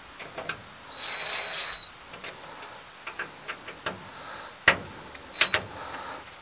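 Cordless drill-driver spinning a screw into the smoker's sheet-metal door in one run of about a second, with a steady high motor whine. It is followed by scattered clicks and knocks, the loudest a sharp click just before five seconds in, and a brief second burst from the driver.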